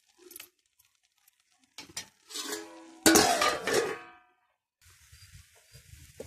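Stainless steel lid clanking against a cooking pan as it is lifted off, with a ringing metallic note and a loud clang about three seconds in. Soft sizzling of the chicken frying starts near the end.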